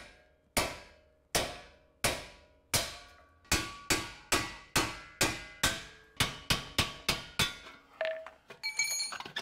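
About twenty ringing hammer blows on metal, speeding up from under two a second to about three a second. The hammering is at the front brake hub, knocking loose the seized screws that hold the brake dust shield.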